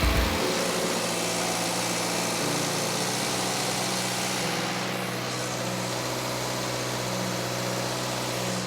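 Subaru flat-four boxer engine idling steadily with a new catalytic converter fitted, run to check the exhaust joints for leaks.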